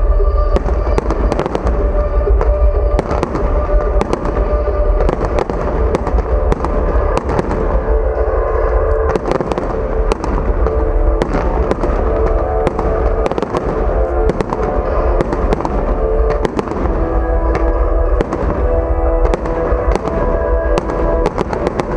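Fireworks display: a rapid, continuous run of bangs and crackles from bursting shells over a heavy low rumble, with music playing alongside.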